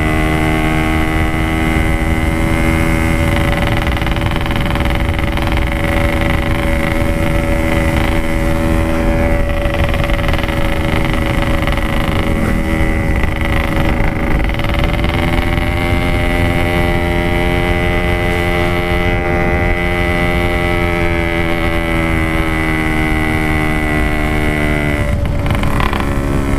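Yamaha RX-King's single-cylinder two-stroke engine running steadily while riding, its pitch holding level with slow, slight rises and falls and no sharp revving.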